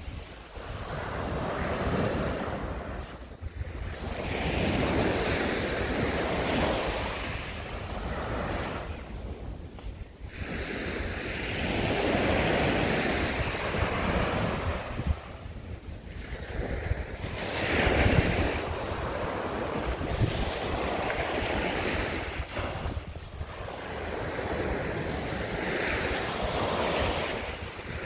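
Small sea waves breaking and washing up a sandy beach, the surf swelling and fading every few seconds. Wind buffets the microphone underneath as a steady low rumble.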